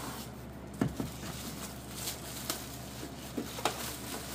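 A few scattered sharp knocks and taps as a boxed MIG welder and its packaging are handled, the strongest about a second in, over a steady low hum.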